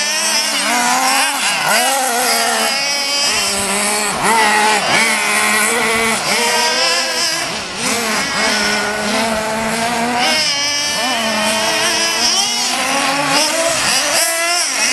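Several radio-controlled off-road cars' small engines revving up and down as they race around a dirt track, their pitches rising and falling and overlapping.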